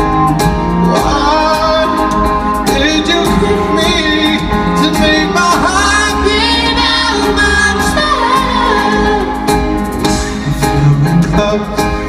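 Live pop-band performance: a male singer's high falsetto vocal over sustained keyboard chords, bass and a steady drum beat, recorded from among the audience in a large hall.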